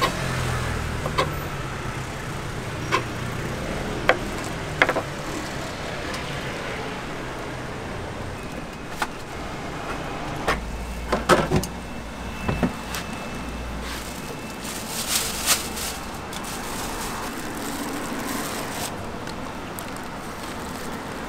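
Kitchen knife chopping sundae on a wooden cutting board: about a dozen sharp knocks at uneven intervals, bunched closer together past the middle. Steady street-traffic noise runs underneath.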